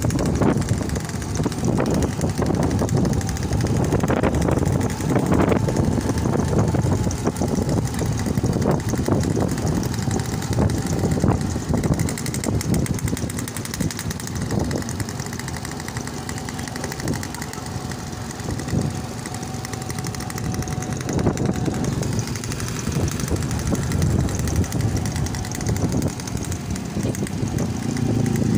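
Small motorcycle engines running steadily while riding along in a group, with wind and road noise on the microphone.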